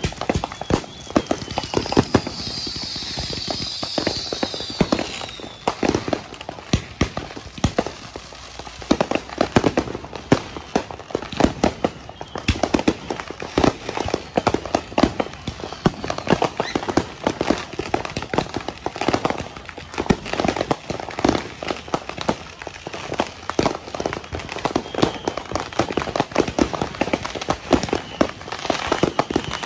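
Many fireworks and firecrackers going off together in rapid, continuous popping and banging, with a high whistle about two to five seconds in.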